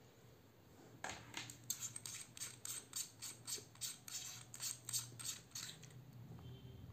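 Handling noise from a Boya BY-M1 lavalier microphone's cable and plastic housing being turned in the hands: a run of short scratchy clicks, about three a second, starting about a second in and stopping near the end.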